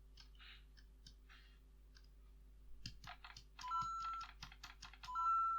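Small plastic Lego parts clicking and being handled, then the Lego Luigi interactive figure giving two short electronic beeps, each a brief low note stepping up to a longer higher one.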